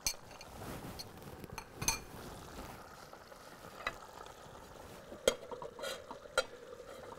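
Spoon clinking in an aluminium cooking pot as chopped green peppers are stirred into chicken stew, over a faint steady sizzle. A few sharp metal clinks, the loudest a clank about five seconds in as the aluminium lid goes onto the pot.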